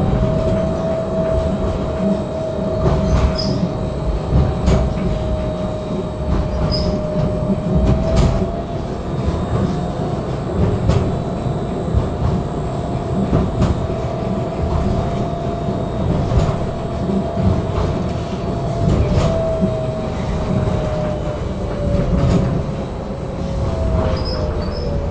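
Tram running between stops: a low rumble of wheels on the rails with scattered clicks over the track, and a steady whine that rises slightly a third of the way in and drifts down near the end.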